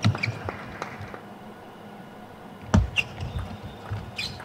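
Table tennis ball knocking sharply off rackets and the table in a doubles rally, with a lull of over a second before play picks up again with a heavier thump and a run of quick knocks. Shoes squeak on the court floor as the players move.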